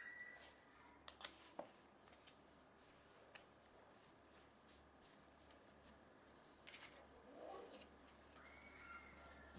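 Faint clicks and soft ticks of playing cards being handled and laid down, with a faint high steady tone at the start and again near the end.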